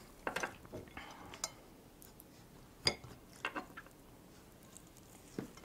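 Soft cottage-cheese-filled sweet bun being torn apart by hand over a plate: quiet, scattered tearing and handling sounds, with a few light clicks and clinks, the sharpest about three seconds in.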